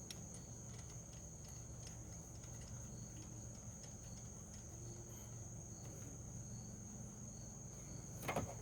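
Crickets trilling steadily, a single continuous high-pitched tone, over a faint low background hum. A few faint metallic clicks come near the end.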